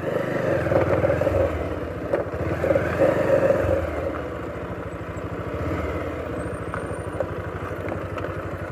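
Motorcycle engine running at low speed on a rough dirt track, its level rising and falling with the throttle and loudest in the first few seconds. A few light knocks come from the bumps.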